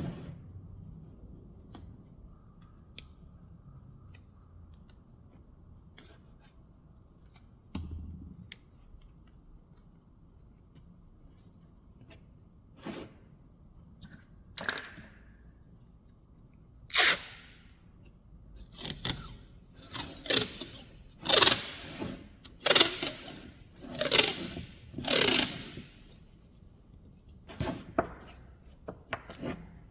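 Short scraping strokes of a hand tool on wood, about one a second through the second half, after scattered light clicks and taps in the first half.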